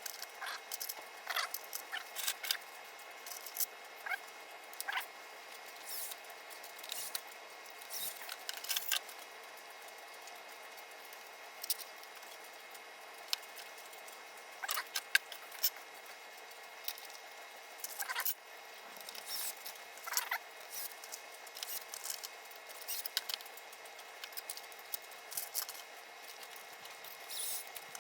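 Faint, sped-up sound of pinball playfield parts, screws and hand tools being handled during assembly: an irregular scatter of quick clicks and ticks with short high squeaks.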